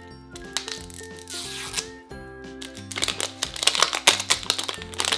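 Plastic wrapping of an L.O.L. Surprise Lils toy capsule being peeled and torn off. A tearing rasp comes about half a second in, then a rapid run of crinkling crackles from about three seconds, loudest around four seconds, over light background music.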